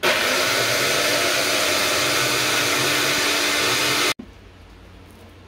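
Electric blender motor running for about four seconds, grinding a spice mix of garlic, turmeric and ginger, then switched off abruptly.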